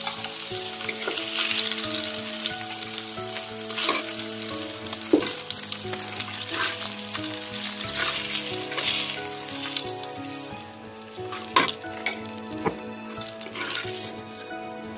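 Catla fish steaks sizzling in hot oil in a metal kadai, with a metal spatula scraping and clinking against the pan as the fried pieces are lifted out. The sizzling dies down after about ten seconds, and several sharp clinks follow.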